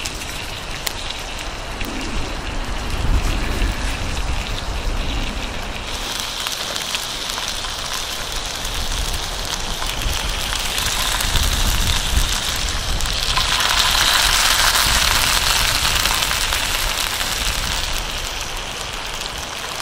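Chicken thighs sizzling in olive oil in a cast-iron skillet over a campfire, a dense crackling hiss that grows louder about halfway through. Wind rumbles on the microphone underneath.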